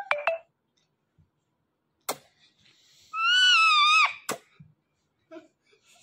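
Indian ringneck parakeet giving one long, high, wavering call about three seconds in. A few sharp clicks come around it, one about two seconds in and one just after the call.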